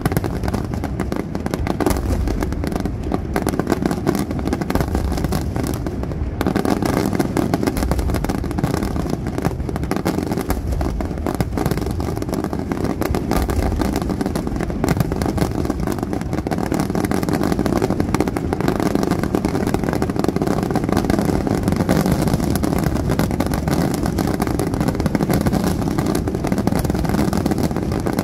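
A dense barrage of aerial firework shells bursting in rapid, overlapping succession, a continuous rumble of bangs and crackle with no pauses.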